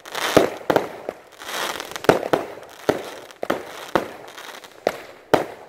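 Aerial fireworks going off one after another: about ten sharp bangs over a few seconds, irregularly spaced, with crackling and hissing between them.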